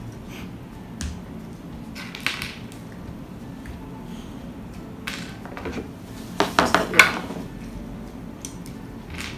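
A small plastic Hatchimals Glamfetti toy egg handled and pried open by hand, giving a few sharp plastic clicks and clatters. The loudest cluster comes about six and a half to seven seconds in.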